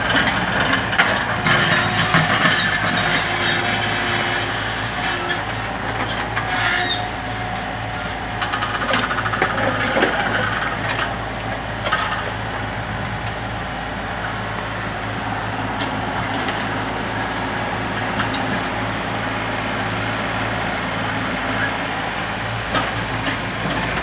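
Komatsu PC20 mini excavators at work: steady diesel engine running, with scattered knocks and scrapes as the bucket digs into rubble-strewn soil.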